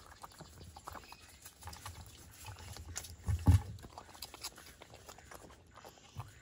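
A fox eating from a metal bowl close up: chewing and licking with scattered small clicks, and a louder thump about three and a half seconds in.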